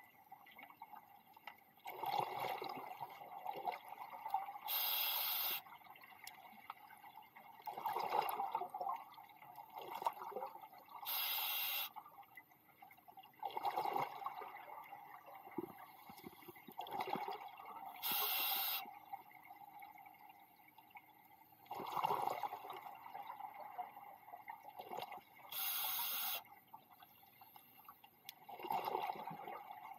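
Scuba diver breathing underwater through a regulator: a short hiss of inhaled air about every six to seven seconds, four times, each followed a couple of seconds later by a gurgling rush of exhaled bubbles.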